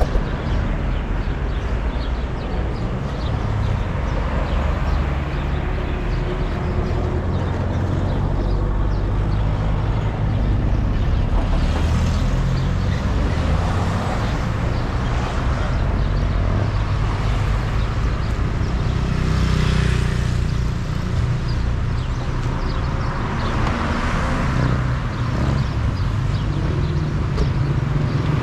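Street traffic with car engines running: a steady low engine rumble, with passing vehicles swelling louder a few times.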